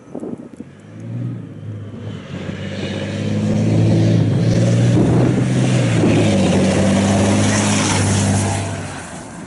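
DAF Dakar rally truck's diesel engine running hard through soft sand. The sound swells over the first few seconds as the truck approaches, stays loud and steady, then falls away near the end as it passes.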